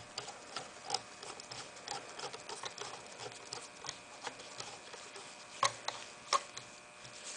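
Screwdriver driving the main stock screw up through a Ruger 10/22 stock into the receiver: faint, irregular small clicks and ticks, with two sharper clicks near the end.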